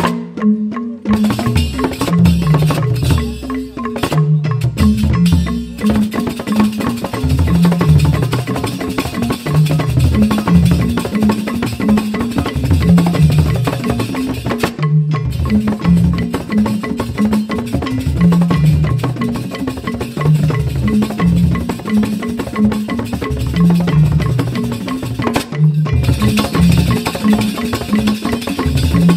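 Balinese joged bumbung gamelan playing an instrumental piece: bamboo tube xylophones struck with mallets, with drums, in a fast repeating cycle.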